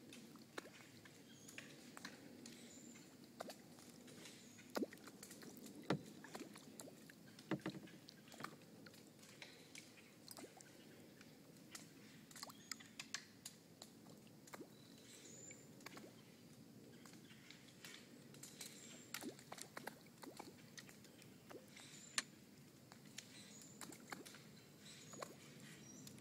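Acorns dropping, irregular sharp ticks and knocks as they hit leaves and branches, some louder than others, with faint short high chirps in the background.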